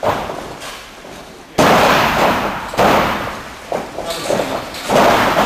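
Wrestlers' bodies slamming onto a boxing-ring floor and ropes: a sharp thud at the start, then loud crashes about one and a half seconds in, near three seconds, and near the end.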